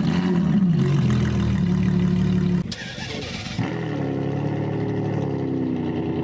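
A car engine starting: it comes in suddenly, dips in pitch and settles to a steady fast idle, then cuts off abruptly a little under three seconds in. After a short gap a second car engine idles steadily, its pitch drifting slowly lower.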